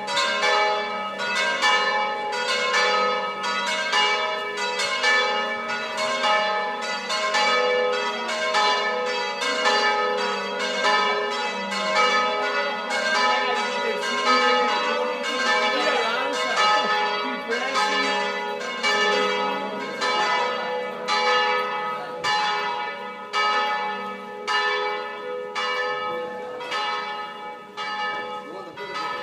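Several church bells pealing together, struck in quick overlapping succession at two or three strokes a second, each stroke ringing on. The peal grows quieter near the end.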